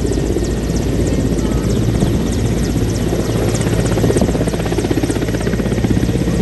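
Mi-17-type military transport helicopter hovering low close by, its rotor beating in a fast, steady chop over a loud engine noise.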